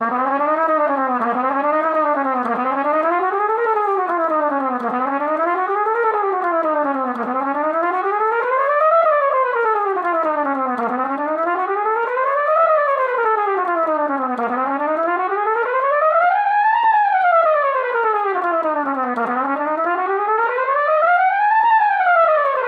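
Trumpet playing chromatic scales up and down without a break, each ascent climbing higher than the last, spanning about two octaves. It is an expanding chromatic-scale exercise for finger technique, returning to the low starting note at the end.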